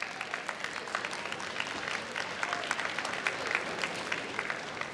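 Large audience applauding in an arena, many hands clapping steadily.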